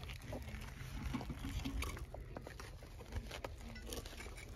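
Scattered light clicks and scrapes of rock and quartz crystal being handled with gloved hands as a quartz cluster is pulled from a pocket, over a steady low rumble.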